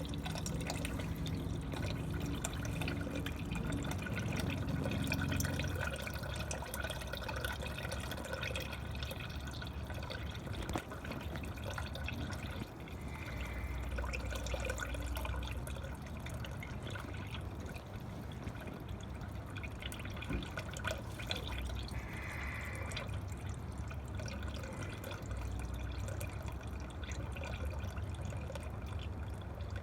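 Milky, water-contaminated engine oil draining out of a flooded ATV engine, a steady trickle and drip of liquid into a catch pan. The emulsified oil is the sign of river water in the crankcase.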